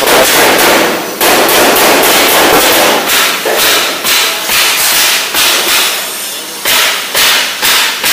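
Hammer blows on sheet steel car body panels: a rapid run of loud metallic strikes that slows to about two strikes a second near the end.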